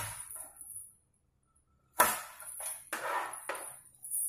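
Kitchen knife cutting a peeled raw banana on a plastic cutting board: sharp knocks of the blade on the board, each with a bright metallic clink. There is one knock at the start, a second of quiet, then a quick run of four or five knocks as the slices are cut and pushed aside.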